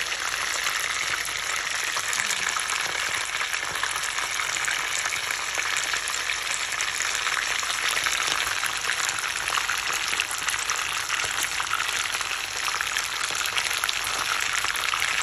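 Whole fish shallow-frying in hot oil in a frying pan: a steady sizzle scattered with fine crackling pops from the bubbling oil.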